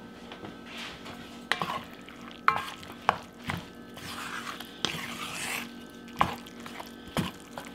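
Wooden spoon stirring a thick, creamy chicken-and-vegetable filling in a cast iron pan: a wet stirring sound broken by irregular knocks of the spoon against the pan, about seven in all.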